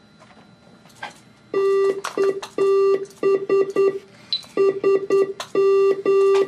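Morse code keying tone from head switches sending code through a Tandem Master Morse interface: a steady single-pitch beep switched on and off in long dashes and short dots, starting about a second and a half in, with a few sharp clicks among them. The code is issuing mouse commands to a computer.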